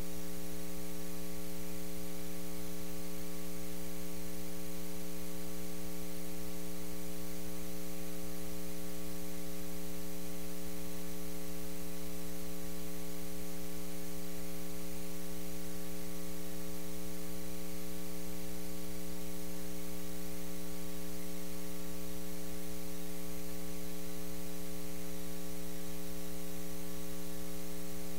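Steady electrical mains hum with a buzzy stack of overtones and a light hiss, unchanging throughout. No room sound comes through.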